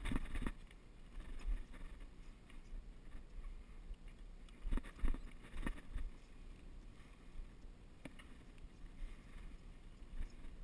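Mountain bike riding over a dirt singletrack: a steady low rumble of tyres and wind on the microphone, with knocks and rattles from the bike hitting bumps, in clusters at the start and around the middle and once more later.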